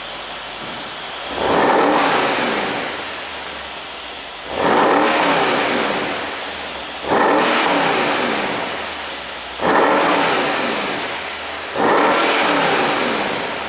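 Mercedes-AMG CLS 63's twin-turbo V8 blipped five times from idle, each rev rising sharply and falling back over about two seconds. An ECU pop tune makes the exhaust crackle and pop as the revs drop.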